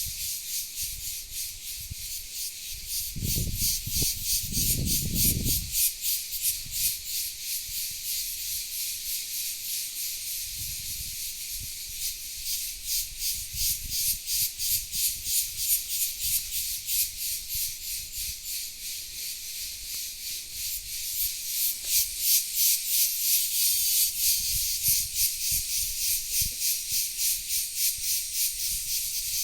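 Insects in the forest chirring in a dense, high, rapidly pulsing chorus, swelling louder about two-thirds of the way through. A brief low rumble comes a few seconds in.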